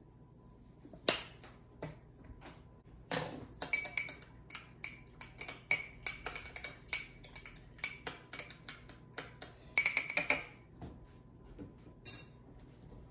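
Two sharp knocks, then a metal utensil clinking quickly against a small glass bowl for about seven seconds as olive oil and grated Parmesan are stirred together.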